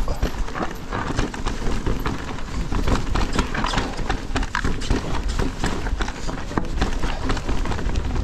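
E-mountain bike riding fast over a rocky trail: tyres and frame clattering over stones in a dense run of irregular knocks, over a constant low wind rumble on the microphone.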